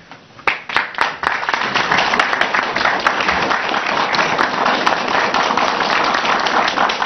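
Audience applause: a few scattered claps about half a second in, building within a second or so into steady applause.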